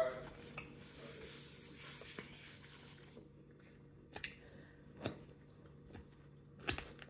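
Eating sounds from a salad: a soft crunching rustle for about two seconds, then four short sharp clicks roughly a second apart.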